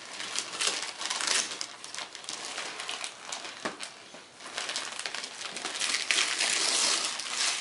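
Gift wrapping paper being torn and crumpled: continuous crinkling and rustling broken by many sharp rips.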